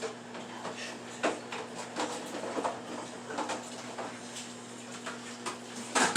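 Kitchen clean-up handling noises: scattered light knocks and clatters of utensils, dishes or a drawer, with a louder knock near the end, over a steady low appliance hum.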